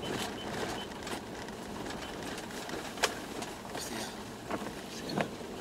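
Toyota Land Cruiser 120 driving, heard from inside the cabin as steady road and engine noise. A sharp knock comes about three seconds in and a smaller one near the end.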